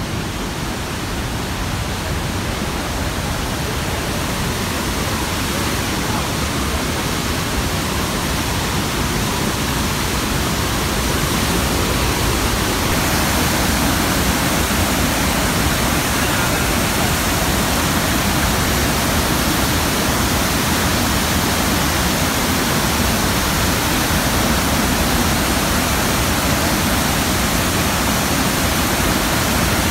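Steady rush of the Iguaçu Falls, a massive curtain of water crashing onto rocks. It grows a little louder in the first half, then holds steady.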